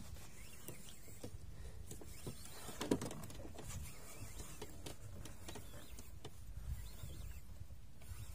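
Spinning fishing reel being cranked while a fish is brought in on a jigging rod: faint scattered clicks and scratches, with one sharper click about three seconds in, over a low steady rumble.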